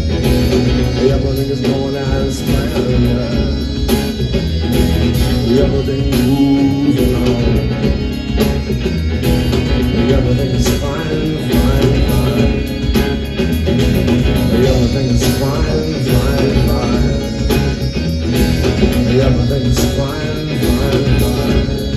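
Rock band playing live, an instrumental stretch of a song with guitar over a steady beat and bass.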